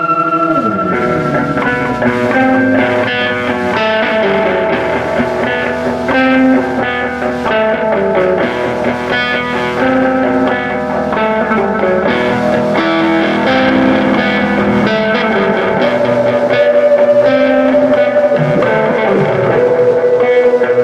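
Rock band playing, led by electric guitar picking a busy line of notes. Right at the start a held note slides down in pitch.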